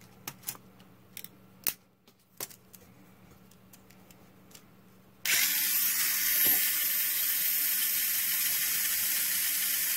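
A few light plastic clicks as the Tamiya Mini 4WD chassis is snapped together. About five seconds in, the car's electric motor and gear train start suddenly and spin with a steady high whir. The freshly brush-oiled gears run very smooth, with a little bit of catching from one gear.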